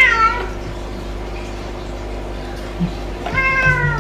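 A domestic cat meowing twice: a short call right at the start and a longer one near the end, each dropping in pitch.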